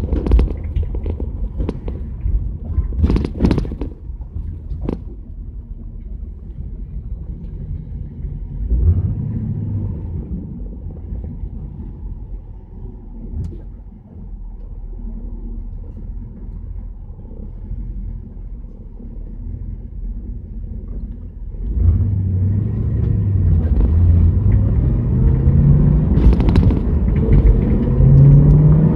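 1977 Chevrolet Camaro's engine and road rumble heard from inside the back seat, with a couple of sharp knocks in the first few seconds. About three-quarters of the way through the engine gets louder and its pitch climbs, drops and climbs again as the car accelerates through the gears.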